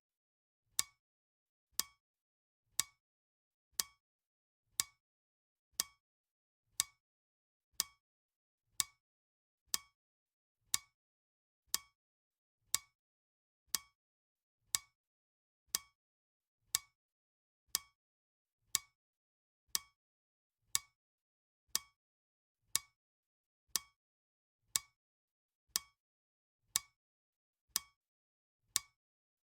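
Clock ticking steadily, one short sharp tick a second, all the ticks of equal strength.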